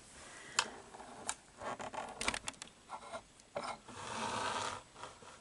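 Handling noise as the camera is moved over: scattered light clicks and rubbing, with a stretch of steady rustling about four seconds in.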